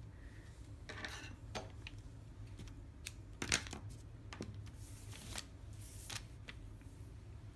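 Faint handling sounds of baker's twine being pulled off its spool and drawn across a tabletop: light rustles and scattered small clicks, with one sharper click about three and a half seconds in.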